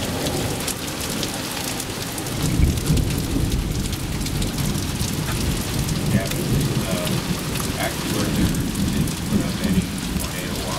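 Heavy rain pouring down in a thunderstorm, with a low rumble of thunder swelling about two and a half seconds in.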